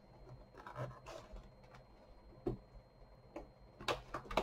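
Faint scattered clicks and rustling of hands handling a cardboard advent calendar box while opening one of its doors, with a few louder clicks near the end.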